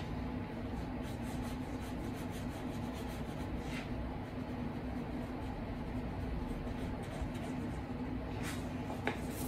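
Pen drawing lines on a sheet of paper over a cutting mat, faint scratching strokes, with a short tap near the end, over a steady low hum.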